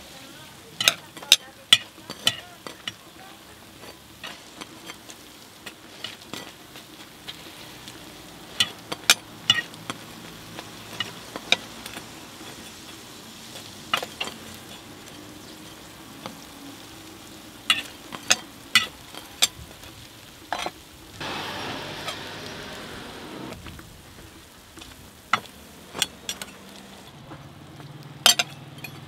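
Hotteok sweet pancakes frying in oil on a flat griddle, sizzling steadily, with many sharp metal clinks and taps from a stainless hotteok press and spatula against the griddle. About two-thirds of the way in the sizzling swells into a louder hiss for about two seconds.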